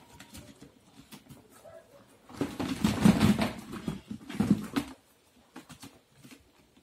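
Rustling and knocking of handwoven plastic-wire baskets being lifted and handled, in two loud bursts around the middle.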